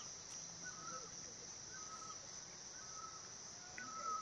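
Faint forest ambience: a steady high-pitched insect drone, with a bird repeating a short call about once a second.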